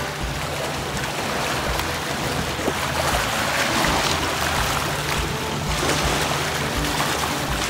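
Small waves from choppy lake water lapping and washing over a rocky, muddy shoreline, with background music underneath.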